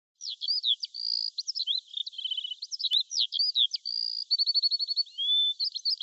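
A songbird singing a quick, varied song of chirps, whistles and short trills, high and thin with nothing in the low range.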